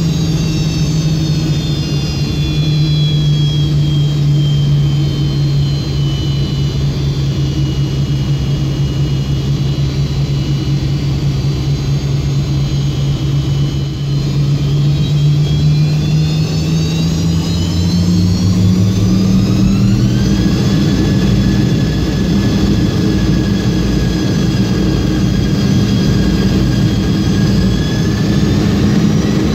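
Yak-42D's rear-mounted Lotarev D-36 turbofan heard from a cabin window seat right beside it, in the climb after takeoff: a harsh, loud, steady engine noise with a deep hum and a high fan whine. The whine sinks slowly in pitch, then climbs quickly about twenty seconds in as engine speed rises.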